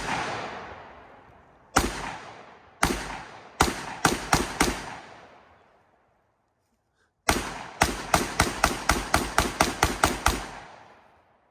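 Gunshots with a ringing echo after each. A few shots come in the first five seconds, some close together. After a pause of about two and a half seconds comes a rapid string of about a dozen, roughly four to five a second.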